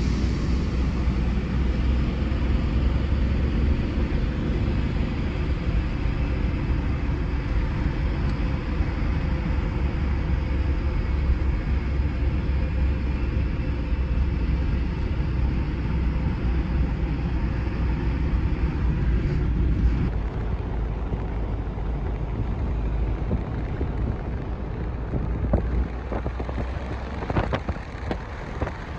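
Car driving, heard from inside the cabin: a steady low road and engine rumble with wind, easing off about twenty seconds in as the car slows. A few light clicks come near the end.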